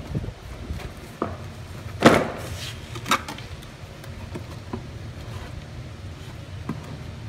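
A few knocks and clunks as a lawn mower is handled and set down on a concrete floor and a plastic container is put beside it. The loudest clunk comes about two seconds in, with a smaller one a second later, over a steady low hum.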